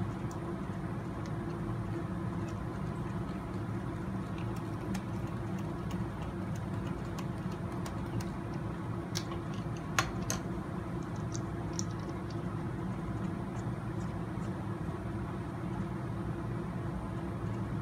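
Faint small clicks and taps of a wheel being fitted onto an RC truck's hub and its nut tightened with a nut driver, with a couple of sharper clicks about nine to ten seconds in, over a steady low hum of the room.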